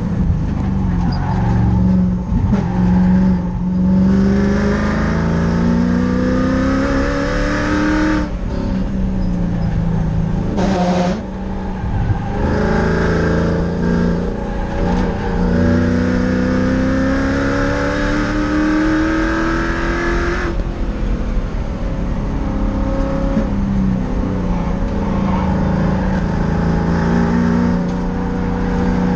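Race car engine heard from inside its stripped cockpit, pulling hard around the track. Its pitch climbs steadily, then drops sharply about eight seconds in and again around eleven, and after a long climb falls again near twenty seconds.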